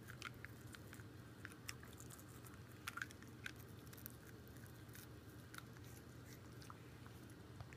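Faint clicks and scrapes of a toothbrush against a Shiba Inu's teeth as the dog mouths and bites at the brush, with a cluster of louder clicks about three seconds in.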